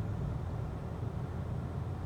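Steady low rumble of a car driving: engine and tyre noise holding even, with no change in pace.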